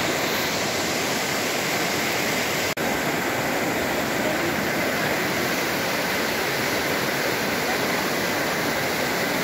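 Fast-flowing river water rushing past, a loud, steady, even noise, with a momentary break about three seconds in.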